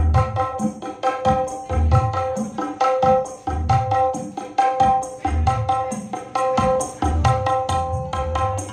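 Live arranger-keyboard music from a Korg keyboard played through a PA sound system: a steady percussion rhythm with deep bass thumps under sustained keyboard tones.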